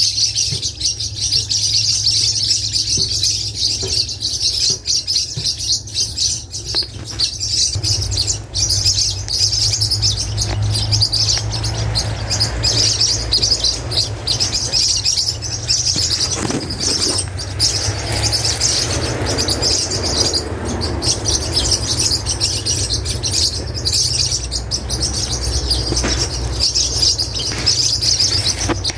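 A flock of small green parakeets (maritacas and periquitos) chattering continuously, many high, shrill calls overlapping into one dense sound.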